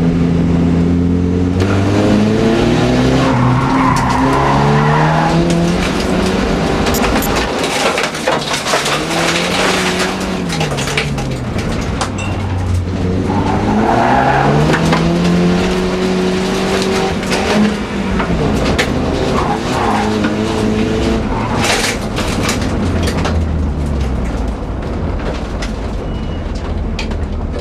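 Volvo 240 folkrace car's engine heard from on board under racing load, its pitch climbing and falling in long sweeps as it revs out and backs off through corners and gear changes. Gravel and stones clatter sharply against the car, with tyres skidding on the loose surface now and then.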